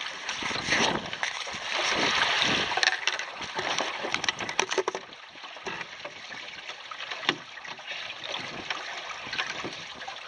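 Water rushing and sloshing along the hulls of a sailing double canoe, louder in the first half and quieter after about five seconds, with a few sharp clicks just before the change.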